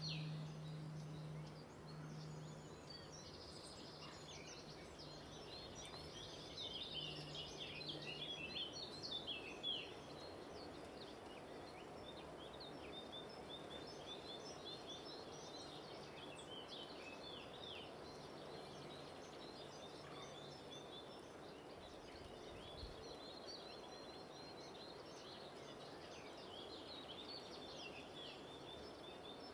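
Faint outdoor ambience of many small birds singing, a dense run of quick chirps and trills over a steady background hiss. A low hum comes and goes underneath, mostly in the first ten seconds.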